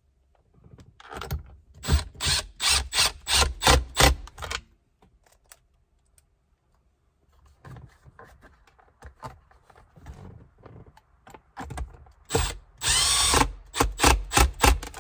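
Power screwdriver driving Phillips screws into a plastic console piece: about three seconds of sharp repeated clicks, roughly three a second, then after a pause the motor spinning briefly followed by another run of clicks near the end.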